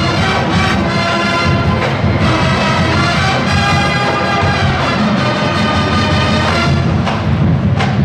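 College marching band playing: the brass section holds full, loud chords over the drums, then about seven seconds in the horns drop away and sharp percussion hits take over.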